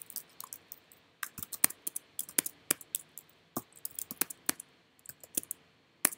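Typing on a computer keyboard: irregular bursts of keystrokes, including tab presses for shell completion. There are brief pauses about a second in and again near the end.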